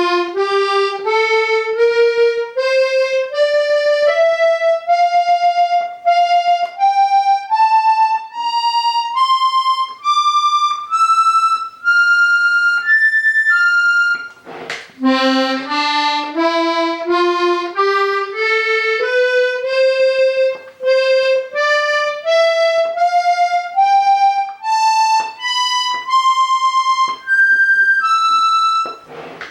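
Hohner Corona IIIR three-row diatonic button accordion playing scales one note at a time, climbing step by step. About halfway through it breaks off and starts a second, lower run that climbs again.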